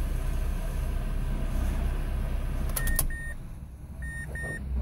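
2005 Mazda 2 engine idling at about 1,000 rpm, then switched off with a click about three seconds in. After it stops, a warning chime sounds in pairs of short high beeps.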